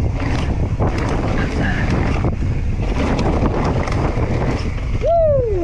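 Wind rushing over the camera microphone as a Santa Cruz Megatower mountain bike runs fast down a dirt trail, its tyres, chain and frame rattling over the bumps. Near the end a short falling tone cuts through.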